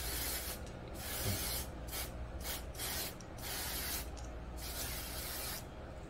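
Aerosol silicone spray can hissing in about seven short bursts through its straw nozzle, coating a rubber diaphragm evenly.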